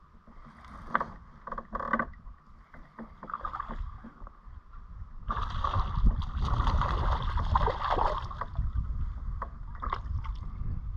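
Hooked fish thrashing and splashing at the water surface for about three seconds midway, while a fishing reel cranks the line in; a few sharp clicks and knocks early on, over low rumble of the kayak on the water.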